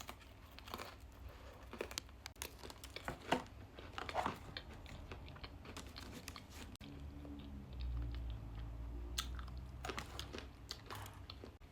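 Someone biting and chewing a chocolate-covered butter biscuit, with scattered crunches. A faint low hum comes in for a few seconds in the second half.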